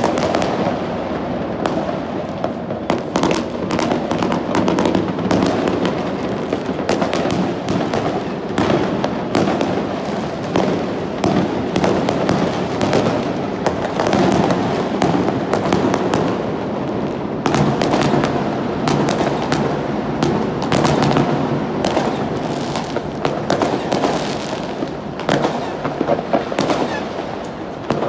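Dense, continuous barrage of fireworks and firecrackers going off: a constant crackle of many overlapping bangs and pops with no pause.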